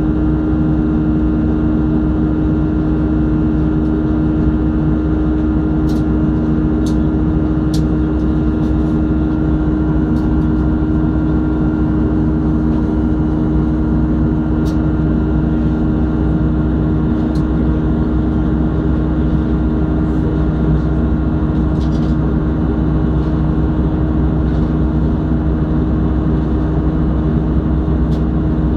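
Steady cabin drone of an Airbus A320-211 in flight, from its CFM56-5A1 turbofan engines, with a steady low hum. A few faint ticks sound over it.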